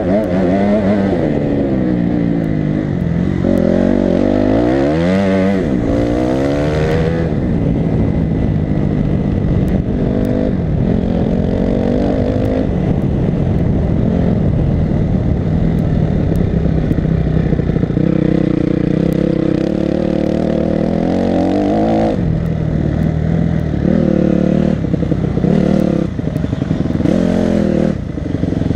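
Enduro dirt bike engine running hard, its revs rising and falling again and again as the rider opens and closes the throttle, heard from the rider's helmet.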